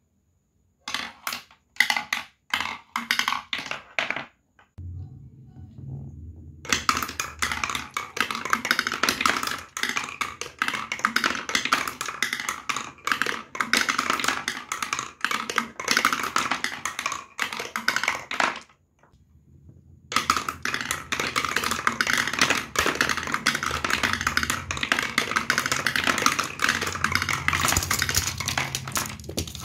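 Glass marbles rolling and clattering down wooden zigzag ramps: a few separate clacks at first, then a dense rapid rattle of clicks that stops briefly in the middle and starts again. A low hum runs underneath from about five seconds in.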